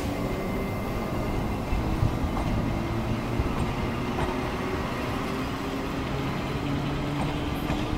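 E205 electric locomotive pulling a passenger train out of the station: a steady low hum and rumble of the locomotive and coaches under way, with a few light clicks.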